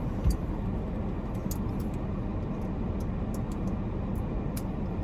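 Steady low rumble of car cabin noise, with one short knock just after the start and a few faint clicks.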